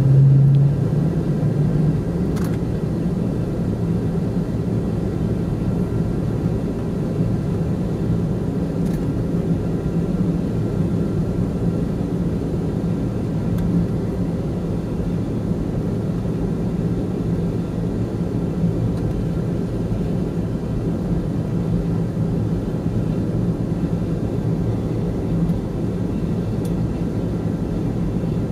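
Cabin noise of a Boeing 747-200 taxiing: its jet engines run at low taxi power as a steady low hum, a little louder in the first second or so, with a few faint knocks.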